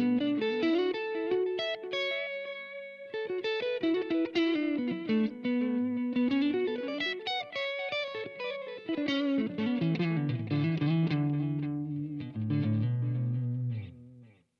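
Electric guitar played through a Blackstar Amped 2 pedal power amp: quick picked single-note lead lines with string bends that rise and fall in pitch. It cuts off suddenly near the end.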